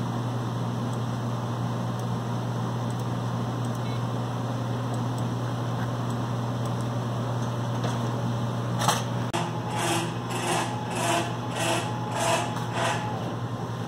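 A steady low hum, then from about nine seconds in a sharp click and a run of short mechanical whirs about two a second from the Wright CNC plasma table's motors moving the torch into position over the tube.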